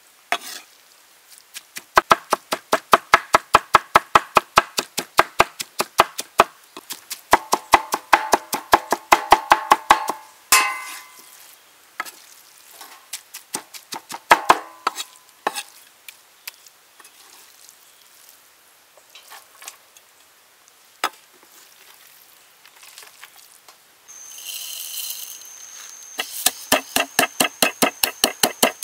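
A cleaver chopping and mincing pork, snail meat and vegetables on a wooden board, in fast runs of sharp strikes at about four or five a second. Near the end a wooden pestle starts pounding black peppercorns in a mortar, in a fast steady beat with a ringing knock.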